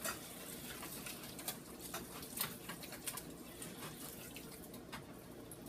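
Faint, irregular light clicks and scraping of a spoon stirring a thick sauce mixture in a small container.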